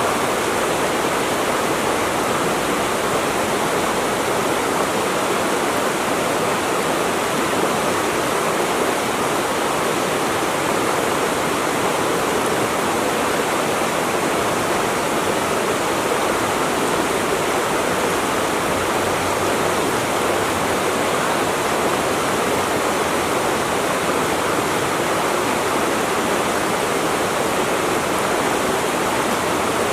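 Rushing water in a steady, even rush with no breaks or changes.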